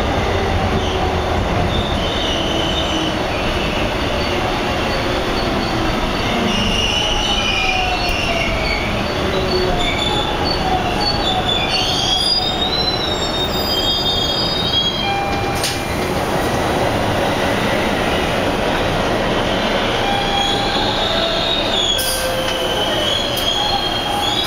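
TTC Bombardier T1 subway car running at speed, heard from inside the car: a loud, steady rumble of wheels on rail with a high-pitched wheel squeal that wavers and slides in pitch, fading out past the middle and coming back near the end.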